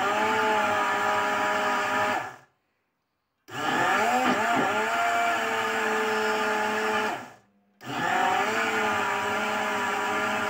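Countertop blender motor running in three bursts, whirring up in pitch at each start. It cuts out about two and a half seconds in and again about seven and a half seconds in, each time starting back up after a short pause. The jar holds a liquid banana-and-egg batter being given a second blend.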